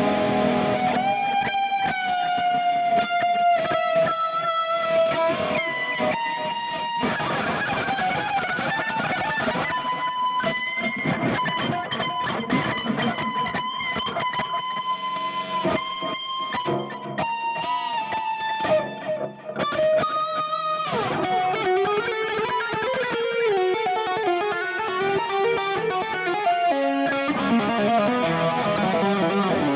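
Electric guitar strung with Elixir Optiweb 009–046 strings playing a lead line of held notes with string bends and vibrato.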